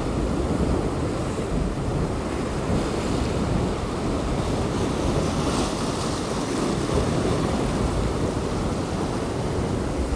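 Steady noise of sea surf and wind, with wind rumbling on the microphone.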